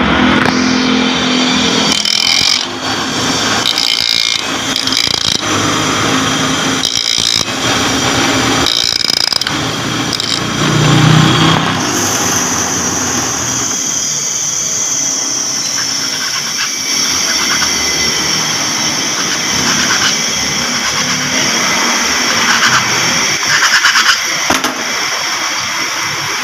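Bench grinder running while a small metal part is ground down against the wheel to make it fit through its hole. For about the first twelve seconds the grinding comes in many short passes; after that it settles into a steadier sound with a constant high whine.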